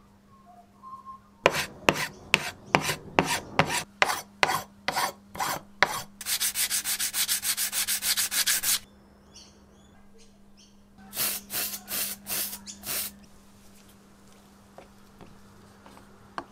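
Abrasive pad rubbed by hand back and forth over a bicycle pedal block. First comes a run of separate strokes, about two a second, then a quick burst of fast scrubbing. After a short pause there are a few more strokes.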